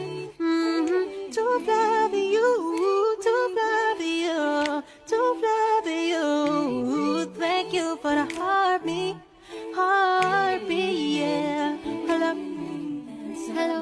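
Unaccompanied singing voice carrying a melody, with held, bending notes and short breaths between phrases: a sung phone ringtone.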